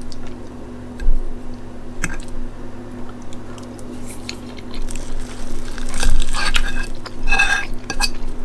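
Eating sounds: metal cutlery clicking and scraping on a plate, with chewing of a mouthful of rice, hamburger patty, egg and gravy. Sharp clicks come about one, two and eight seconds in.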